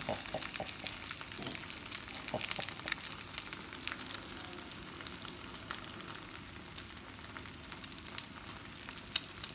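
Potato slices, ham and eggs frying in a pan, with a steady sizzle and fine crackling.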